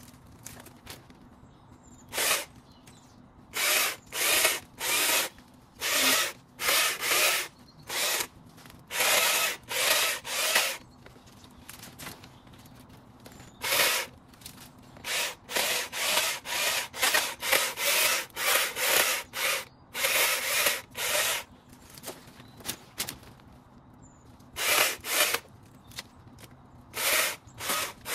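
Short rasping strokes of a hand garden tool working through wood or brush, in irregular runs of several strokes, up to about two a second, with pauses between.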